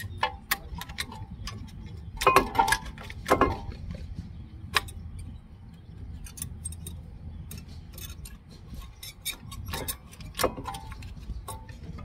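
Scattered metallic clicks and clinks, some ringing briefly, with a busier cluster about two to three and a half seconds in: brake parts being handled as the old front brake pads and their metal clips are worked out of the caliper bracket.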